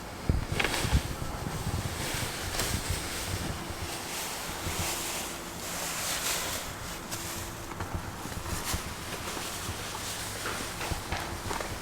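Rustling and handling noise from packaging being worked on, with a couple of sharp knocks about half a second to a second in.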